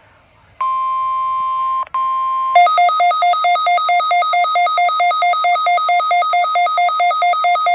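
NOAA Weather Radio alarm during a weekly test: a steady warning alarm tone near 1 kHz, broken once by a short dropout. About two and a half seconds in, a pulsing electronic alarm at two pitches takes over, at about four pulses a second.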